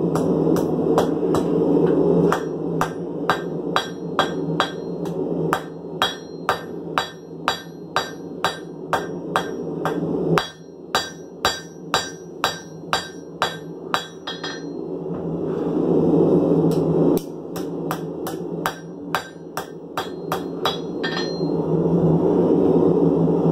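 Blacksmith's hand hammer striking a red-hot file blade on an anvil, about three blows a second, each with a ringing note. The blows pause briefly a little past the middle and stop shortly before the end, over a steady hum.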